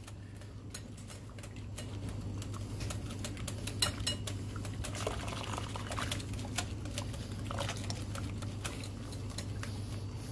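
Wire whisk beating eggs and sour cream in a glass bowl, a quick run of light clicks and scrapes of metal on glass, over a steady low hum. The mix is being tempered: hot broth is added gradually while whisking hard so the eggs and cream don't curdle.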